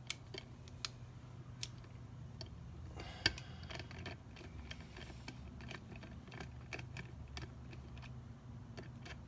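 Scattered light clicks and taps of small metal parts and hand tools being handled on a transmission valve body, with one sharper click about three seconds in, over a steady low hum.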